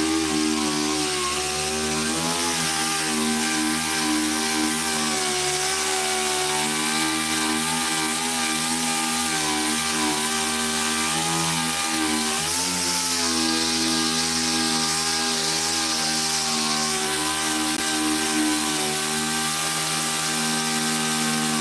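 Dual-action (DA) sander running steadily while sanding Bondo body filler. Its pitch sags briefly twice, about two and a half and twelve and a half seconds in.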